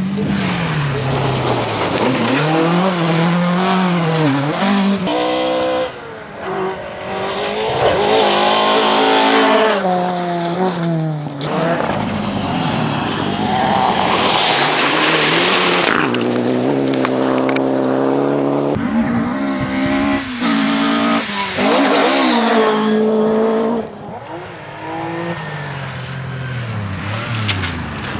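Several rally cars running flat out on a gravel stage, one after another. Each engine revs hard, its note climbing and dropping through gear changes and lifts.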